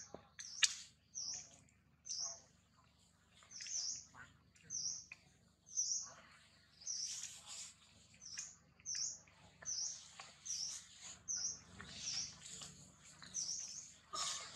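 A bird calling over and over, a short high dipping chirp about once or twice a second, with one sharp click about half a second in.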